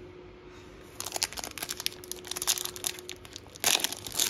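Foil wrapper of a Donruss football card pack crinkling as it is handled, starting about a second in, then ripped open in a loud tear near the end.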